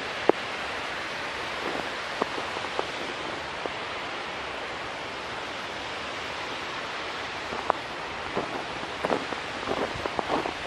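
Steady rush of falling water from a waterfall, with scattered sharp ticks on top that come more often in the last couple of seconds.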